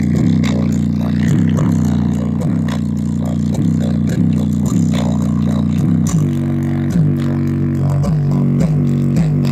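A slowed-down song playing loud through a JBL Charge 4 Bluetooth speaker in its LFM bass mode. A deep bass line dominates, its notes dipping in pitch about twice a second, and the bass pattern shifts to a different pitch about six seconds in.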